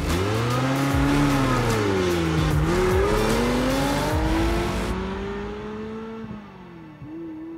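Ferrari F430's V8 engine revving as the car accelerates away, its pitch climbing and dropping several times with the gear changes. It fades out after about five seconds.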